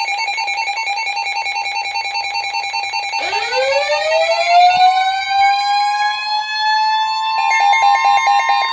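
Emergency alert attention tones: a rapidly pulsing electronic two-tone alarm, then about three seconds in a siren-like wail that glides upward in pitch and holds steady, with a run of short quick beeps near the end.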